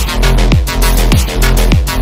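Background electronic music with a steady beat of deep bass drum hits, each falling in pitch, over a heavy bass line.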